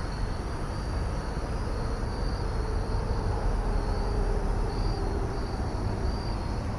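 Evening insects trilling high in short, intermittent stretches over a steady low rumble of outdoor noise.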